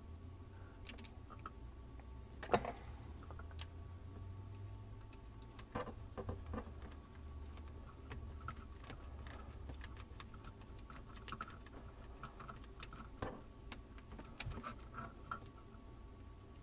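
Scattered faint clicks and ticks of a screwdriver turning the small screws that clamp a plastic hose weight onto a pull-down faucet's sprayer hose, with light handling of the hose and weight, and one louder knock about two and a half seconds in. A faint low hum runs underneath.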